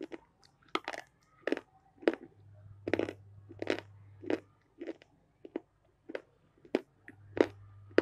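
A person chewing crunchy food close to the microphone: about a dozen sharp crunches, roughly one every half second to second.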